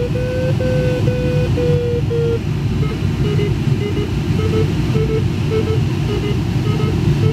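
Glider's audio variometer beeping over a steady rush of air past the cockpit. The tone holds fairly long for the first two seconds, then breaks into shorter, sparser beeps at a slightly lower pitch, the beeping tone that signals lift.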